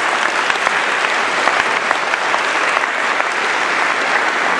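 Audience applauding: many hands clapping at once, at an even level.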